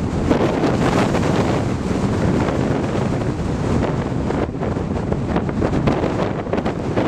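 Strong wind buffeting the microphone: a continuous low rumbling noise that swells and dips with the gusts.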